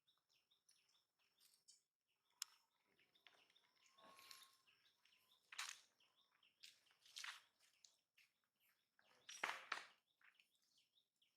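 Faint outdoor ambience: small birds chirping softly throughout, with a few brief rustling swishes, the loudest near the end.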